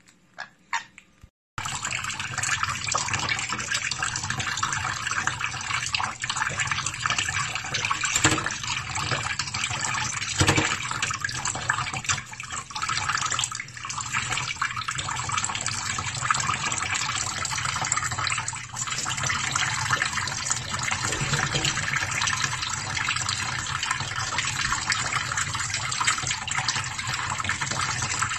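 Kitchen tap running steadily into a stainless steel sink tray, the stream splashing over a sun conure bathing under it. It starts about a second and a half in, after a few faint short sounds.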